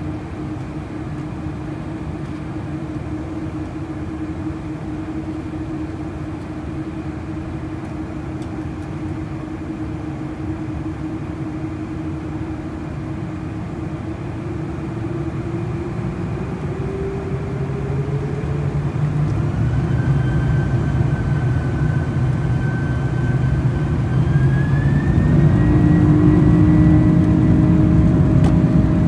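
The GE CF6-80C2 turbofan engines of a Boeing 747-400, heard from inside the cabin over the wing: a steady hum at low thrust, then, from a little past halfway, the engines spool up with a rising whine and a louder rumble as takeoff thrust is set.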